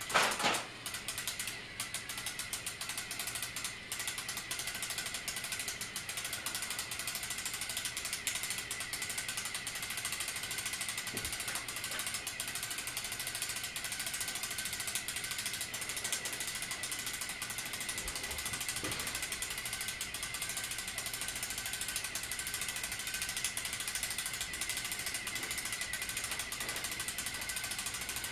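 Small geared motor running steadily, its gears giving a fast, even ticking over a thin steady whine. A sharp knock right at the start.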